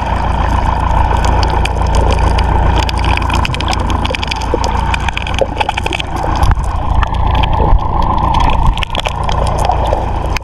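Small fishing boat's engine running steadily, with the rush of wind and water over it and scattered knocks.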